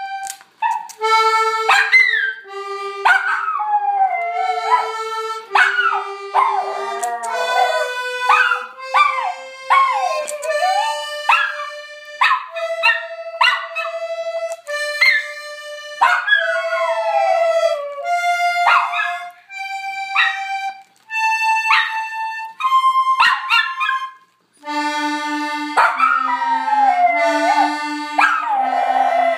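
An accordion playing a slow tune of held notes, each lasting about a second, while a small dog howls along in wavering cries that slide up and down over the notes.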